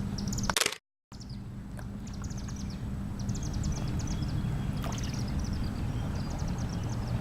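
Small birds singing short, rapid high trills again and again over a steady low hum and rumble. Just before a second in there is a loud crackle, then the sound cuts out briefly.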